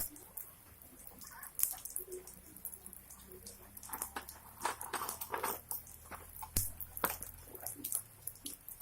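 Irregular drips and small splashes of rainwater, scattered sharp ticks at a low level.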